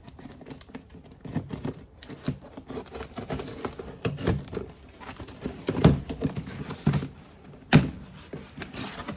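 A parcel box being opened and its contents handled: packaging rustling and crinkling, with scattered knocks and two sharper thunks, about six and eight seconds in.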